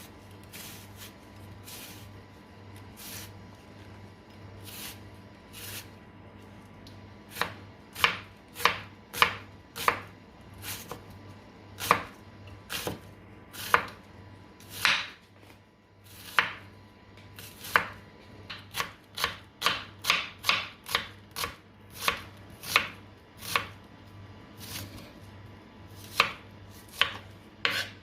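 Kitchen knife chopping a red onion into cubes, each stroke knocking on the cutting board. The strokes are sparse at first, then come in an irregular run of about one or two a second, briefly quicker in the second half.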